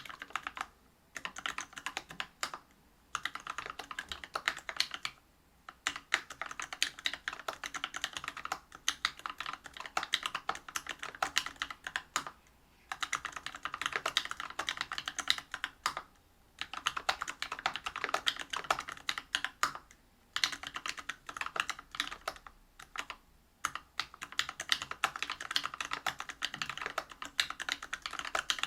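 Continuous typing on a Whale 75 mechanical keyboard with a brass plate, Bingsu POM linear switches and PBT keycaps: rapid keystroke clacks in runs of a few seconds, broken by several short pauses.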